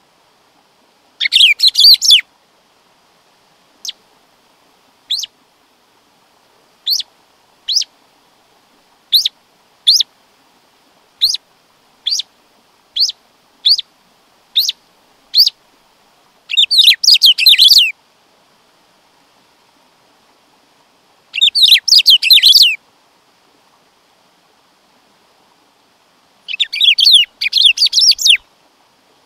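Black-throated saltator (bico-de-pimenta) singing: four short bursts of rapid high notes, about a second in, near 17 s, near 22 s and near 27 s. Between the first two bursts come single short high notes, about one a second.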